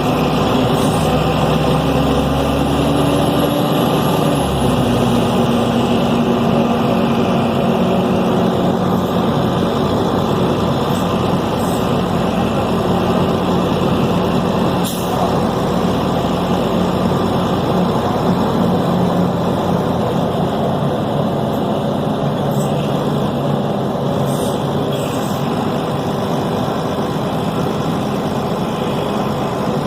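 Deutz BF6M 1013 six-cylinder turbodiesel of a Tatsa Puma D12 city bus running steadily, its pitch shifting a few times, with a faint high whistle rising and falling in the first few seconds. A single sharp click sounds about halfway through.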